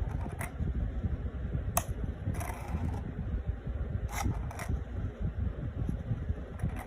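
A steady low rumble with about five sharp clicks scattered through it, the one just under two seconds in the sharpest.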